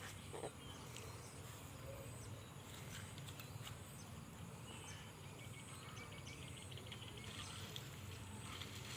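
Faint outdoor background, a steady low noise, with a short rapid chirring trill about five to six seconds in.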